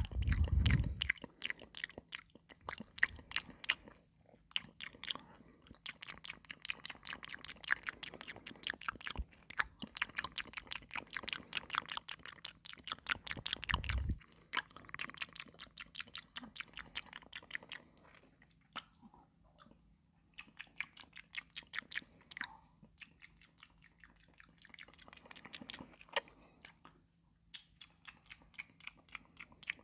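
Close-miked chewing of crisp cucumber: dense runs of wet, crunchy crackles, with a heavier thud at the start and another about halfway through, and brief lulls between mouthfuls.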